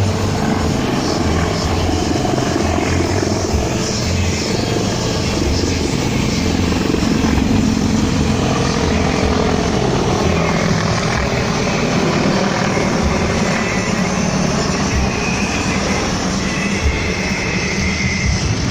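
Helicopters flying over, a steady loud rotor beat with engine noise. Faint music joins in near the end.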